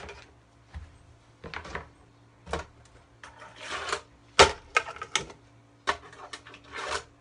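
Tech Deck fingerboard (a gold Plan B) skating on tabletop ramps: a series of sharp clicks and clacks at irregular intervals as the board's tail and wheels strike the ramp and table during trick attempts, with a short rolling stretch just before the loudest clack about four seconds in.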